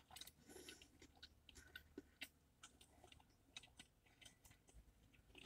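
Faint chewing of a bite of sub sandwich, a few quiet scattered clicks and crunches over near silence.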